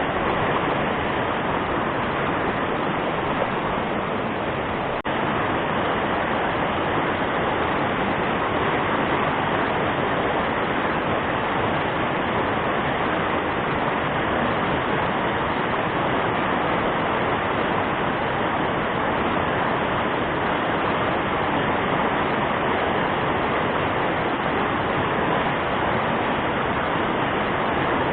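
Fast-flowing river water rushing in a steady, even roar, with a brief click about five seconds in.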